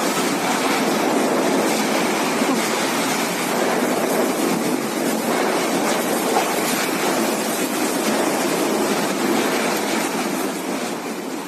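Cyclone winds and driving rain: a loud, steady rush of storm noise that fades away near the end.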